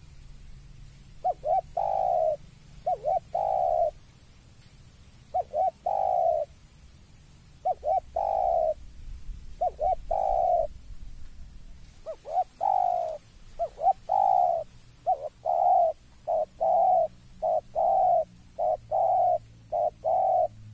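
Spotted dove cooing: repeated phrases of two or three quick short notes ending in a longer, slightly falling coo, the phrases coming closer together in the second half. This is its calling at the sight of a rival.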